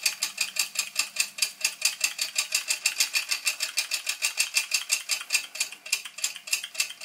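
Homemade model steam engine built around a Mamod piston and flywheel, running on live steam: a rapid, steady chuff of exhaust beats, about eight a second.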